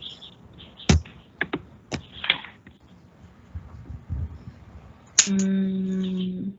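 A few separate sharp clicks and taps, like a computer keyboard being used. Near the end comes a steady, even buzzing tone lasting about a second and a half, which starts and cuts off suddenly.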